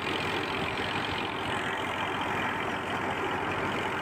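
A tractor engine running steadily under load, driving a wheat thresher, with the thresher's dense mechanical noise over it.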